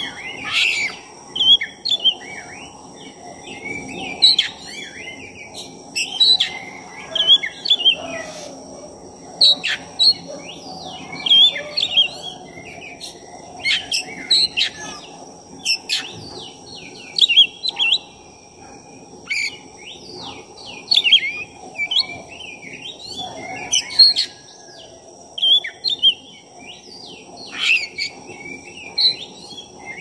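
Black-breasted oriental magpie-robin (kacer dada hitam) singing vigorously and without pause: a continuous run of varied whistled phrases broken by sharp clicking notes, with a new loud phrase every second or two. This is the full 'gacor' song that keepers play to rouse other magpie-robins.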